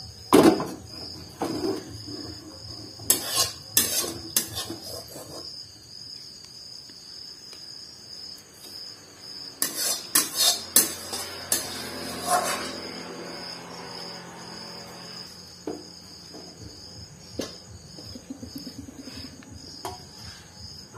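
Steel spatula clanking and scraping against a steel kadai and serving dish while the cooked fish curry is scraped out of the pan, in bursts of sharp knocks near the start, about three to four seconds in and about ten to twelve seconds in. A steady high-pitched trill continues underneath.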